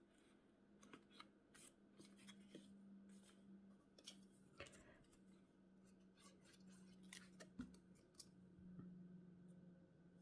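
Near silence with faint paper handling: scattered light taps and short rustles of a paper strip being pressed into a cardstock box, over a low steady hum.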